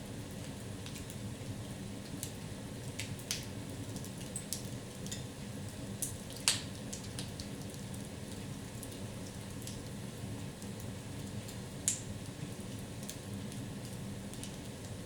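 Wood fire crackling in a fireplace: a steady low rush of burning with scattered pops and snaps, the loudest about six and a half seconds in and another near twelve seconds.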